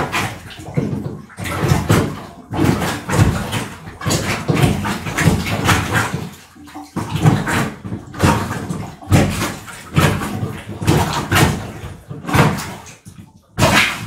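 Rubber cup toilet plunger pumped up and down in a toilet bowl, with a plunging stroke roughly every second.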